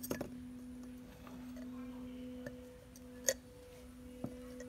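Small sharp clicks and taps of a plastic security-camera housing and its infrared LED board being handled and fitted together, a few scattered clicks with the loudest a little past the middle, over a steady low hum.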